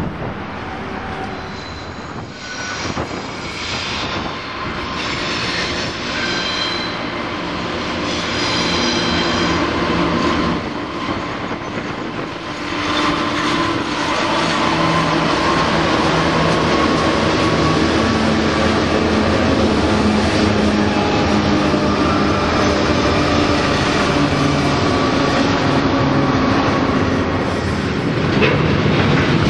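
Diesel freight locomotives approach and pass close by, engines running, then container wagons roll steadily past on the rails. Short high squeals from the wheels come in the first several seconds, and the sound grows louder about halfway in as the locomotives draw level.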